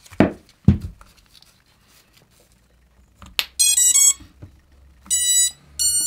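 FPV quadcopter's ESCs sounding their power-up tones through the brushless motors as a LiPo battery is plugged in: a quick run of stepped beeps, then two longer steady high beeps near the end. Two dull handling thumps come in the first second.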